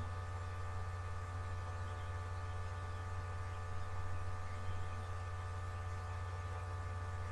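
Steady electrical mains hum with a set of fainter steady higher tones above it and a light hiss, unchanging throughout.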